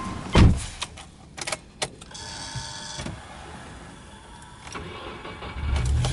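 A car door shuts with a loud thump, and clicks follow as the key is worked in the ignition, with a brief high whine as the ignition comes on. Near the end the Subaru Legacy B4 2.0GT's turbocharged flat-four cranks and starts into a low, steady idle.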